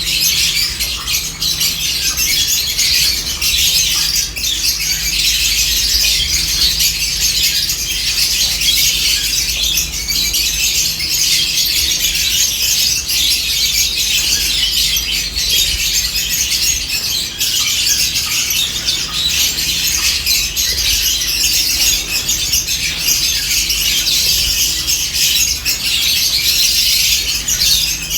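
A flock of lovebirds chattering without pause, many shrill chirps and squawks overlapping, with a faint steady low hum underneath.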